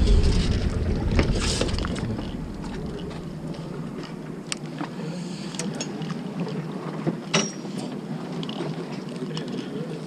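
Wind buffeting the microphone as a low rumble that dies away after about two to three seconds. Then a few scattered sharp clicks from fishing tackle being handled.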